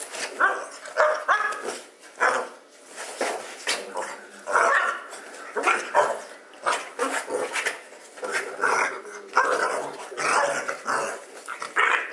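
A dog barking and growling in rough play, short barks coming about twice a second without a break.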